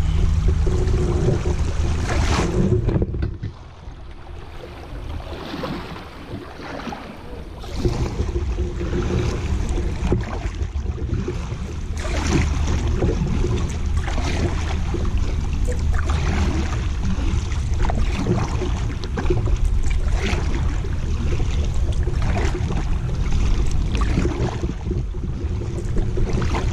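Kayak moving down a fast river: water rushing and splashing against the hull, with paddle strokes splashing about every two seconds and wind rumbling on the microphone. The sound drops for a few seconds near the start, then picks up again.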